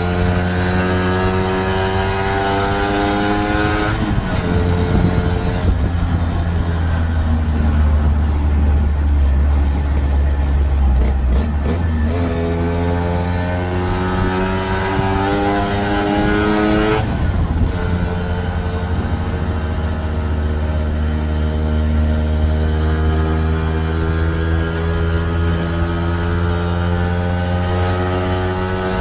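Two-stroke engine of a 1964 Lambretta Series 3 scooter running on the road, its pitch climbing in long stretches as it accelerates. The pitch breaks and drops about 4, 12 and 17 seconds in.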